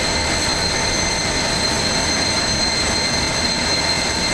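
A jet turbine running steadily on the airport apron: an even rush with a high, steady whine over it.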